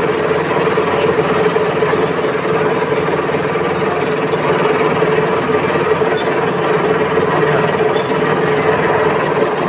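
NH22 lathe running steadily, a constant machine noise with a steady hum.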